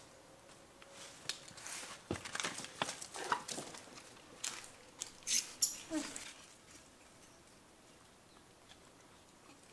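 Small close sounds from a macaque mother and her suckling newborn: a scatter of clicks, smacks and scuffs with a couple of brief squeaks, between about one and six seconds in. Only a faint steady background follows.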